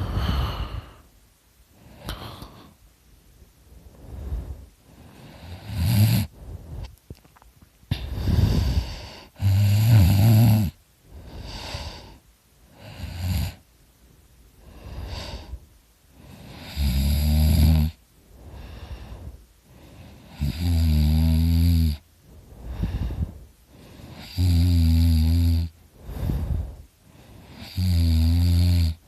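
A drunk man snoring really loud: a long snore about every three to four seconds, with softer breaths in between.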